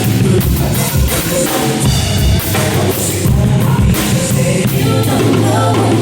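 Rock music at full level: a drum kit played hard along with a band track that has guitar and a singing voice.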